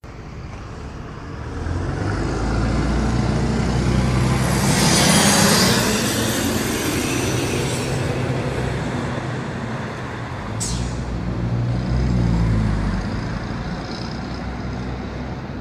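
Temsa MD9LE city bus with a Cummins ISBe six-cylinder diesel and a holed exhaust pulling away under load, its engine note swelling as it accelerates, with a high whistle rising in pitch. A short hiss comes about ten and a half seconds in, then the engine swells again before fading as the bus drives off.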